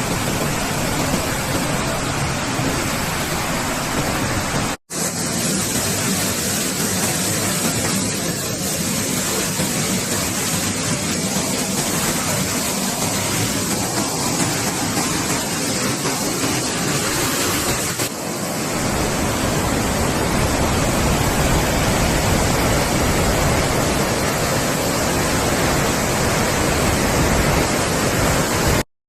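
Waterfall close up: a loud, steady rushing of falling water. It drops out for an instant about five seconds in, and from about eighteen seconds the low rumble grows heavier.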